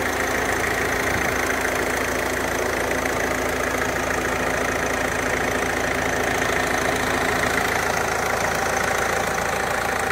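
2015 Ford Fiesta Mk7's 1.5 TDCi four-cylinder diesel engine idling steadily, heard close under the open bonnet.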